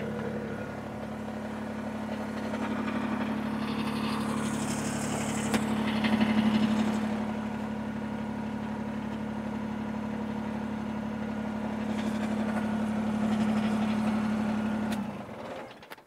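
Kubota BX23S compact tractor's three-cylinder diesel engine idling steadily, with a few light metallic clicks and scrapes a few seconds in; the engine is shut off about 15 seconds in and the sound cuts out.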